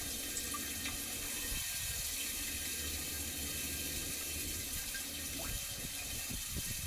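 Hot water from a portable propane water heater's outlet pouring into a water jug, a steady splashing hiss, recirculated to warm the source water.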